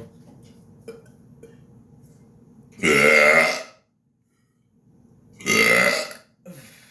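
Two loud, deliberate burps from a man, each about a second long, the second following about two and a half seconds after the first.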